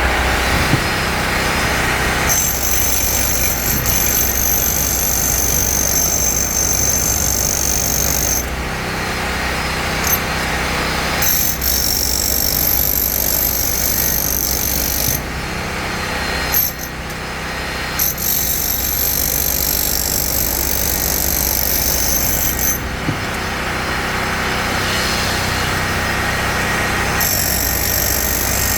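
Wood chipper running, its engine a steady low drone, with stretches of several seconds where a high whine comes in over it and then drops away.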